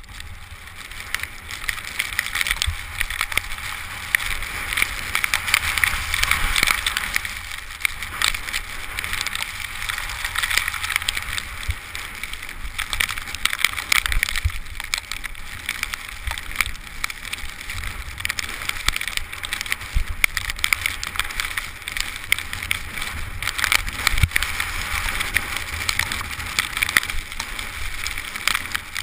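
Skis sliding and scraping over packed snow on a steady downhill run: a continuous hiss dotted with fine crackles, over a low wind rumble, heard through an action camera's waterproof housing.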